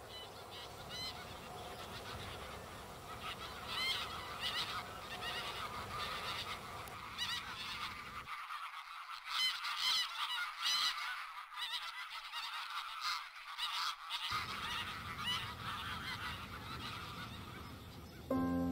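A flock of geese calling, many honks overlapping in a continuous chorus.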